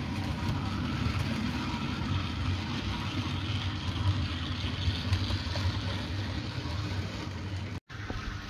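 OO gauge model freight train running past on the track: a steady low motor hum with the rumble of wheels on rail. The sound cuts out for an instant near the end.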